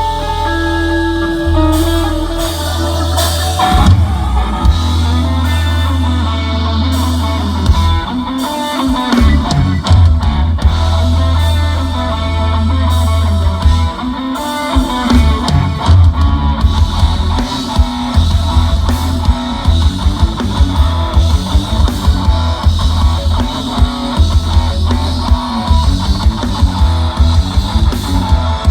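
Live rock band playing loudly without vocals: electric guitar over a heavy bass guitar line and drum kit hits.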